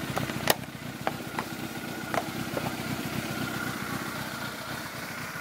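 Yamaha YZF600R's inline-four engine idling steadily, with a few sharp clicks in the first three seconds.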